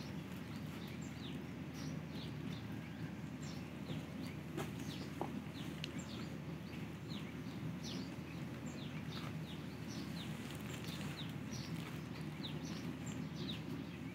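Small birds chirping: many short, high, downward-sliding chirps scattered irregularly throughout, over a steady low hum.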